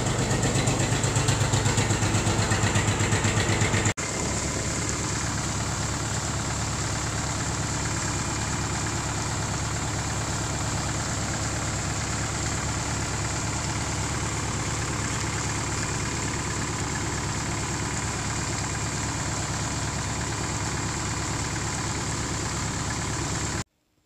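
A farm engine idling with a pulsing low rumble just after a cold start that needed a boost from a battery charger. About four seconds in, the sound cuts to a steadier engine run, which stops abruptly near the end.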